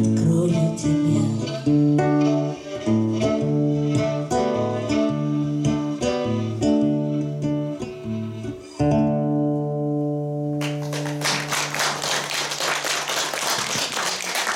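Acoustic guitar and violin playing the instrumental close of a song, ending on a held final chord about nine seconds in. About a second later an audience breaks into applause.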